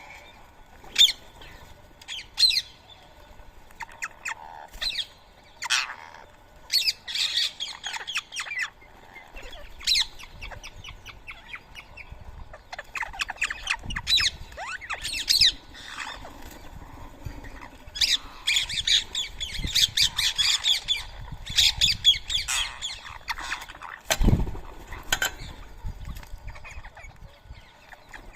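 Wild birds squawking and chattering in quick harsh bursts, busiest past the middle, with one low thump near the end.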